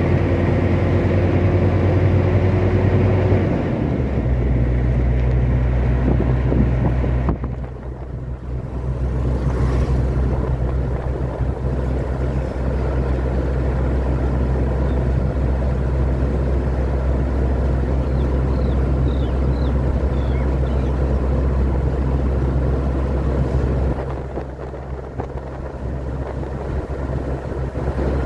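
Steady engine drone and road noise inside a moving road vehicle. The engine note changes about three and a half seconds in, and the noise eases for a couple of seconds twice, once about a quarter of the way through and again near the end.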